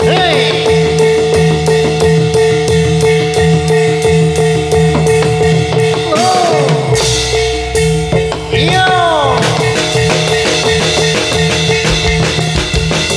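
Live jathilan accompaniment music: drums keep a fast steady beat over a held tone, with a couple of falling-pitch phrases midway.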